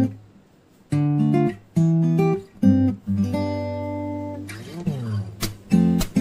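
Background music of an acoustic guitar strumming: short chords with brief gaps between them, one chord left ringing for over a second in the middle, and a quick slide near the end.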